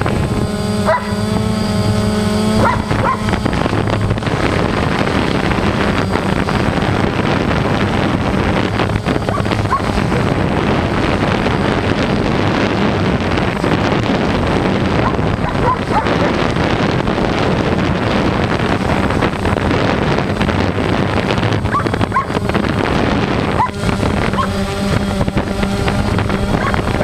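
DJI Phantom 1 quadcopter's motors and propellers running steadily, heard from its own onboard camera, with rushing propeller wash and wind on the microphone.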